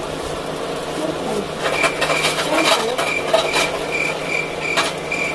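Cricket chirping, a steady train of short high chirps about three a second starting nearly two seconds in, used as an awkward-silence sound effect. A few light clicks sound under it.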